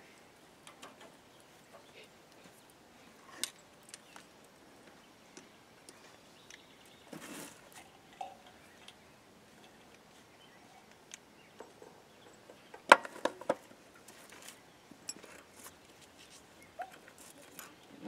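Scattered metallic clicks and clinks as a steel winch cable, its thimble and wedge-clamp parts are handled and fitted together, with the loudest cluster of clanks about 13 seconds in.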